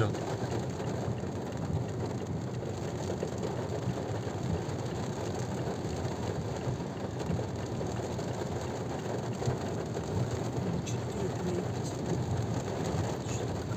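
Rain pattering steadily on a car's roof and windshield, heard from inside the cabin, over a low rumble of road noise.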